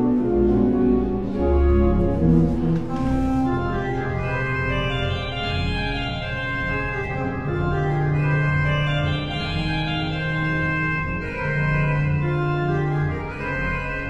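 Church organ playing: sustained chords over long, held deep pedal bass notes.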